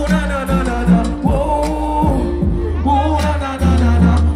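Dancehall riddim with a deep bass line, with a male vocalist singing a melody live over it into a microphone.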